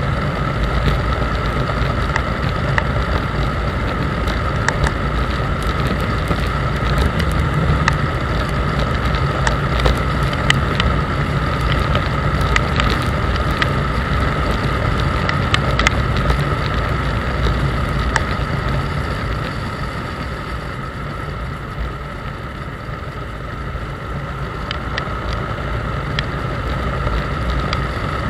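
Motorcycle engine running at a steady road speed, with wind rushing over the microphone. It dips a little quieter for a few seconds about two-thirds of the way through.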